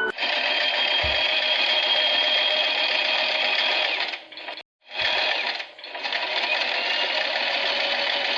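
Usha Janome Wonder Stitch Plus electric sewing machine stitching at a steady speed. It runs for about four seconds, stops briefly, runs again for a moment, then runs steadily once more.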